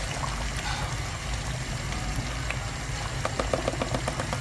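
Thick coconut milk poured from a carton into a pot of chicken simmering in gravy, over a steady hiss. A short run of light ticks comes a little after three seconds in.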